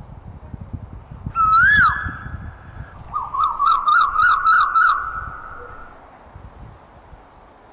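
Asian koel calling: one loud whistled note that swoops up and falls away, then a quick run of about nine short rising notes, after which the calls stop.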